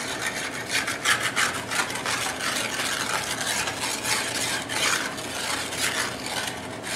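Metal spatula scraping and stirring scrambled eggs across the bottom of a large hand-forged black steel frying pan, in repeated rough strokes. The eggs are setting and drying on the hot pan's bottom, so they are kept moving.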